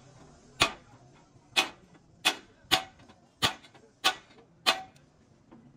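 A hammer striking metal seven times at an uneven pace, each blow sharp and short, a few with a brief ring after them.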